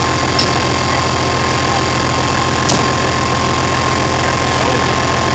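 Heavy truck diesel engine idling steadily, with a constant high whine over a low hum.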